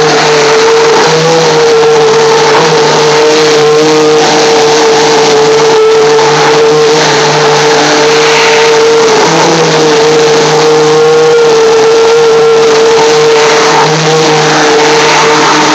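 Stick blender running continuously in a plastic bucket, its motor giving a loud, steady whine with slight wobbles in pitch as the blade churns garlic cloves, ginger, oil and water into paste.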